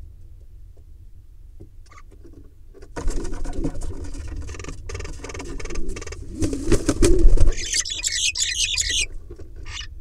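A pigeon and a myna scuffling inside a wooden nest box: wings flapping, feet scrabbling in the straw and bumps against the box walls, starting suddenly about three seconds in. Near the end comes a short burst of harsh, high calls.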